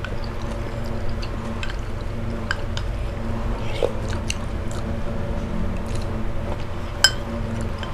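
Close-up eating sounds of noodle soup: chewing and small mouth noises, with light clicks of wooden spoons against ceramic cups and one sharper click about seven seconds in.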